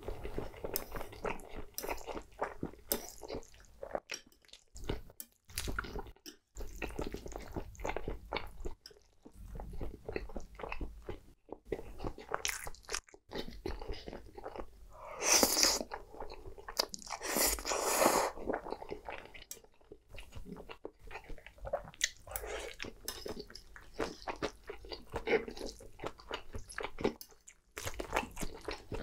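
Close-miked eating of creamy pasta: wet chewing and mouth smacks, with two longer, louder slurps of noodles a little past halfway.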